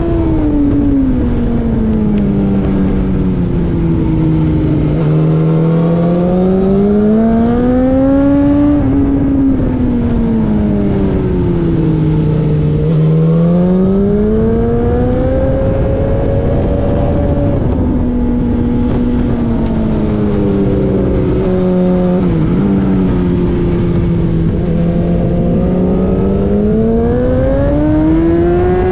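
A vehicle's engine running hard without a break, its revs sliding down and climbing back up about three times, as when braking into corners and accelerating out of them on a race circuit, with steady tyre and wind noise underneath.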